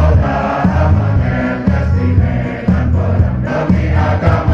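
A pesantren students' choir singing in several voices over musical accompaniment with a strong bass line and a beat.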